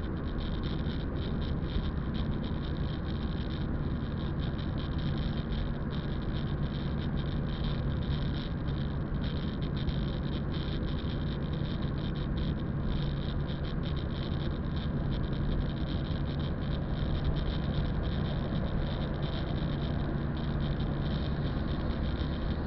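Inside a moving car: a steady engine hum and tyre noise on a wet road, at an even level throughout.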